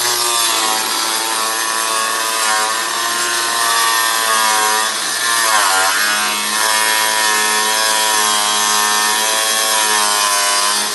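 Power tool cutting through a washing machine tub, running continuously with a whining pitch that dips sharply under load about six seconds in, then recovers.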